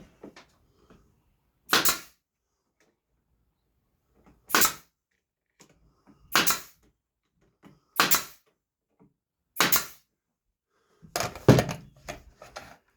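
Brad nailer firing into wood: five sharp shots about a second and a half to two seconds apart, then a quicker cluster of clicks and knocks near the end as the nailer runs out of brads.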